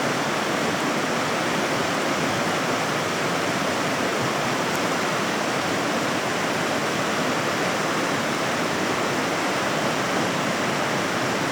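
River water rushing: a steady, even noise of flowing water with no breaks.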